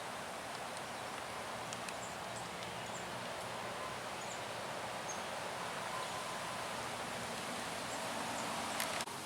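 Outdoor ambience: a steady hiss, with a few faint, short, high bird chirps scattered through it. The sound changes abruptly shortly before the end.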